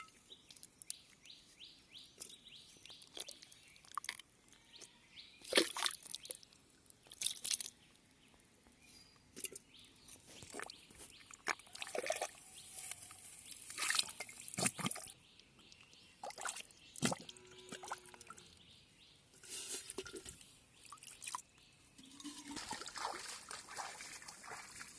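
Shallow pond water splashing and dripping in irregular bursts, as hands or fish disturb it, with the loudest splashes about 6 and 14 seconds in.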